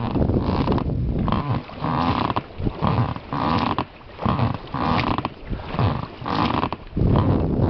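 Oars rowing an inflatable boat, with surges of sound roughly once a second as the blades dip and splash in the water.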